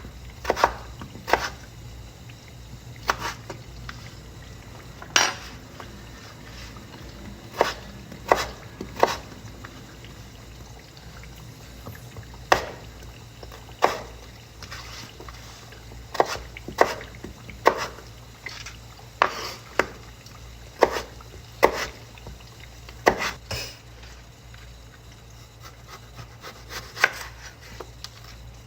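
Kitchen work: irregular sharp knocks and clinks of utensils against cookware or a cutting board, spaced unevenly from about half a second to two seconds apart, over a steady low hum.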